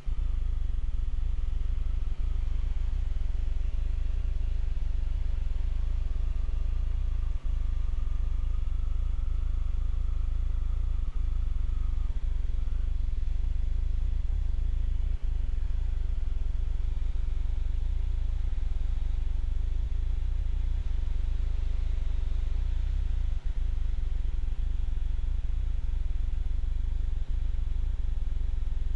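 Steady low drone of an aircraft's engine and propeller in flight, heard from inside the cockpit, with a few brief dips in level.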